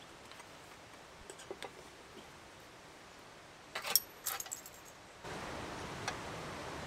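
Metal camp-stove parts and cookware clinking and rattling as they are handled and set down: a couple of faint clicks, then a short cluster of sharp clinks about four seconds in.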